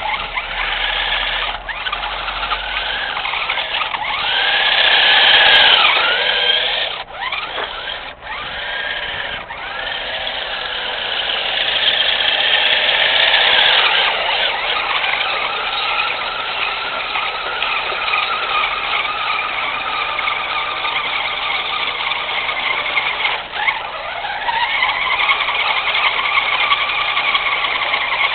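Electric drive motors and gearbox of a Tyco Rampage six-wheeled RC truck, whining as it drives. The pitch rises and falls with the throttle, and the whine cuts out briefly twice about seven and eight seconds in.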